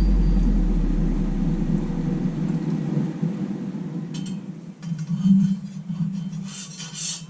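A low rumble fades away over the first couple of seconds under a steady low hum. From about four seconds in, a file starts scraping in strokes across the freshly hardened 5160 spring-steel kukri blade, louder near the end: a file hardness test in which the file skates on the hardened steel.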